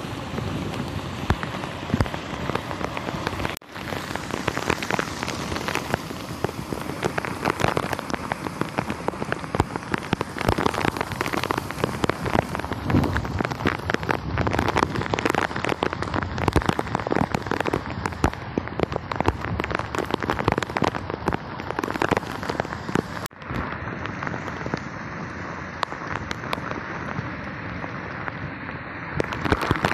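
Heavy monsoon rain pouring down, a dense crackling hiss of drops, mixed with the rush of a drain running full of floodwater.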